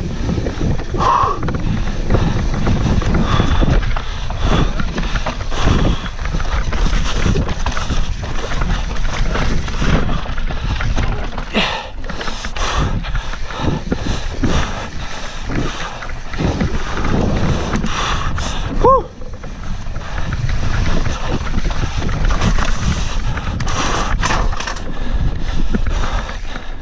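An enduro mountain bike (YT Capra 29) descending a dirt forest trail at speed: tyres rumbling over the ground, wind buffeting the camera microphone, and frequent knocks and rattles from the bike over bumps and roots. There is a brief high squeak about two-thirds of the way through.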